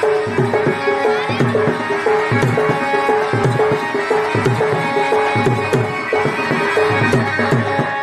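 Folk dance drumming: a tuned drum struck in a fast, steady rhythm of about three to four strokes a second, with other percussion and music around it. It stops near the end.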